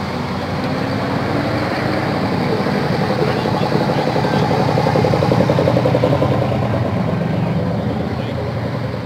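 V8 engines of classic muscle cars running at low speed as they roll past one after another; the sound swells to its loudest about five seconds in as a mid-sixties Corvette Sting Ray convertible passes close by, then eases as a green Plymouth muscle car pulls up.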